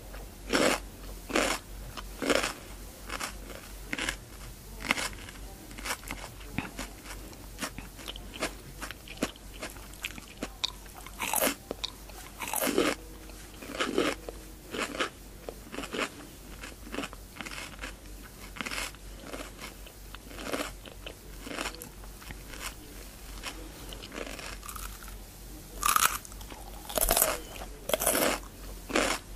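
A person biting into and chewing raw cucumber: a steady run of crisp crunches, one or two a second, with a few louder bites about halfway through and again near the end.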